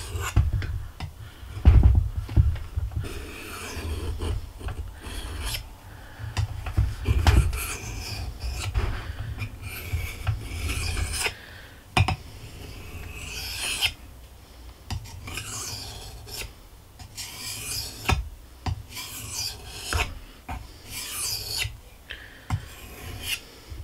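Steel knife blade rasping across the 1000-grit face of a KUNQUN white corundum whetstone in repeated hand strokes, about one a second, pressed firmly. Low bumps come through the first half.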